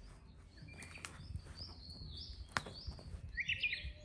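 Birds chirping in short, repeated high calls, with a denser burst of chirps near the end. A single sharp click sounds about two and a half seconds in.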